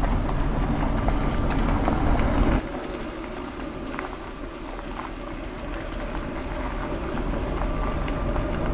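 Low rumble of a van's engine and road noise as it rolls slowly along a gravel road. The rumble is louder for the first two and a half seconds, then drops and stays steady.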